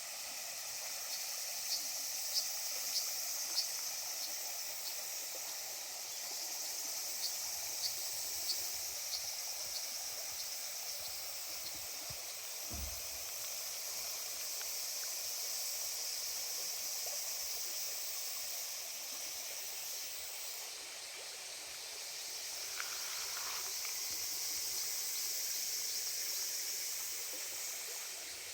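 A cicada chorus: a steady high buzz that swells and fades every several seconds, with runs of sharp ticks about two and about seven seconds in, over the rush of a river. A single low thump about thirteen seconds in.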